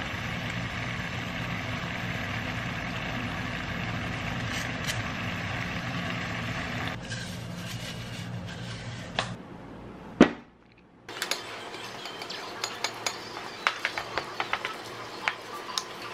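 Stew simmering in a pot on a gas burner, a steady hiss with a low hum. A sharp knock comes about ten seconds in. Then a spoon clinks repeatedly against a ceramic bowl as rice is mixed.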